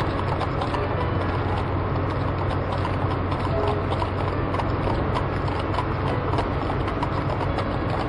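Horses' hooves clip-clopping on a street among many small irregular clicks and rattles, over a steady low hum.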